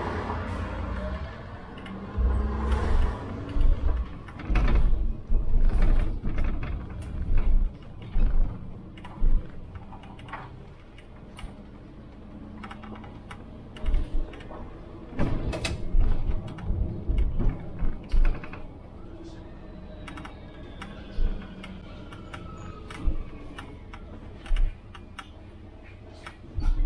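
City bus cab on the move: irregular clicks, rattles and creaks from the bus's fittings, thumps over the road and a low running hum.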